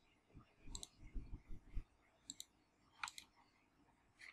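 Faint computer mouse button clicks: three quick pairs of sharp clicks spread over about two and a half seconds, with a few soft low thuds between the first two.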